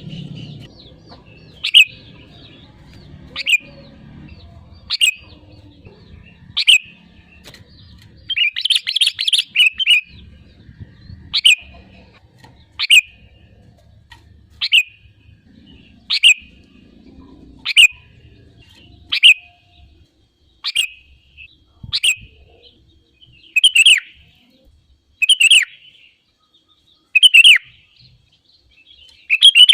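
Sooty-headed bulbul (kutilang) singing: short, bright phrases repeated about every one and a half seconds, with a longer run of rapid notes about eight seconds in.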